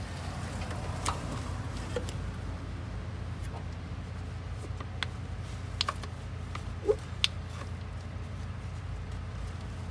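A few light clicks and knocks of tools and hardware being handled while the old truck batteries are taken out, over a steady low hum.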